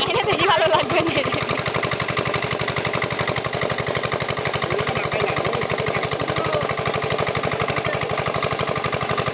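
A small engine running steadily at idle, its even rapid pulse unchanging in speed or loudness.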